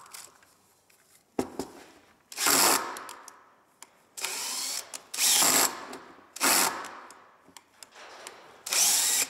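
Cordless drill-driver running in five short bursts with pauses between, driving screws through a wooden corner block into a plywood box's corner post. The screwdriver bit is the wrong size for the screws.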